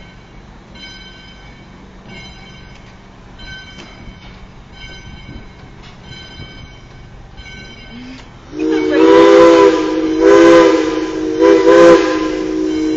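Steam locomotive's bell ringing at an even pace, about once every 0.7 seconds. About two-thirds of the way through, the locomotive's chime whistle sounds loudly as a multi-note chord for roughly four seconds, with a couple of brief breaks near the end.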